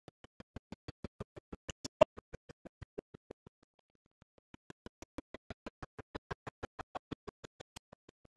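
Rapid, even clicking, about six or seven clicks a second, with one louder click about two seconds in. It stops for just over half a second around the middle and then starts again at the same pace.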